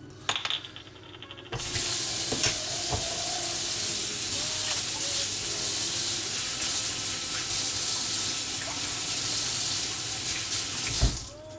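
Kitchen faucet running into the sink while hands are rinsed under it. The water comes on about a second and a half in, runs steadily, and shuts off near the end with a thump.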